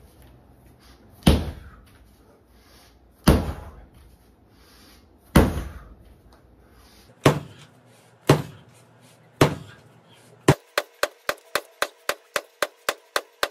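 A heavy ball slammed down onto a gym floor: six loud single impacts one to two seconds apart, each ringing out briefly. In the last three seconds comes a quick, even run of about ten lighter ticks.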